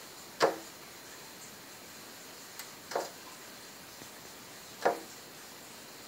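A small blue bird striking the outside of a window pane, three sharp knocks on the glass a couple of seconds apart.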